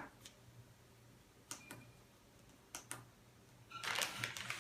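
Plastic Play-Doh playset pieces being handled and set up: a few light clicks and taps, about two at a time, then a busier rustle and clatter of handling near the end.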